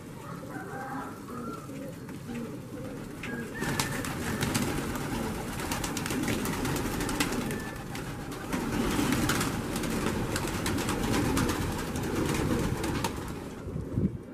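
A large flock of domestic pigeons cooing together. From about four seconds in, many quick flaps and wing claps join in, and the sound gets louder as the birds are driven about.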